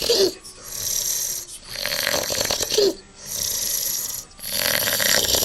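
A man snoring loudly in his sleep: harsh rasping breaths in and out, one about every second and a half, two of them ending in a short pitched catch.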